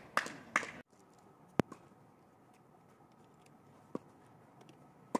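A quick run of loud, sharp, evenly spaced knocks, about two and a half a second, that cuts off abruptly under a second in. Then a faint steady background with a few isolated sharp clicks, the loudest about a second and a half in.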